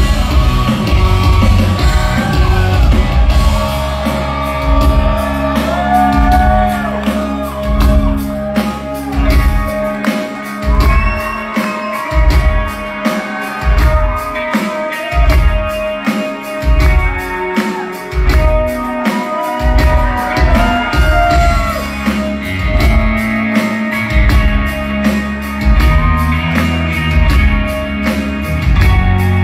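Live rock band playing loud, a male vocalist singing over electric guitars, bass and a steady drumbeat, heard from within the crowd.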